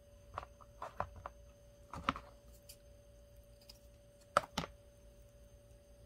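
Wired ribbon being bent and pinched by hand, giving a few short crinkles and taps, the loudest near the end, over a faint steady high tone.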